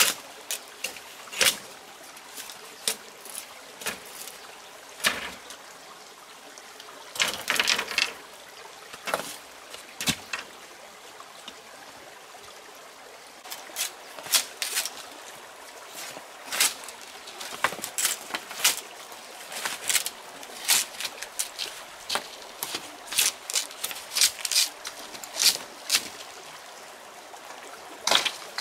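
Machete blade striking bamboo poles as they are chopped and split: sharp, irregular knocks, often several in quick succession and coming more often in the second half. Under them a small stream runs steadily.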